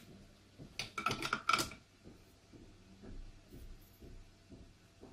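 Hands handling a loose speaker driver with its foam and wires against a plastic housing: a quick cluster of clicks and scrapes about a second in, then faint soft taps and rustling.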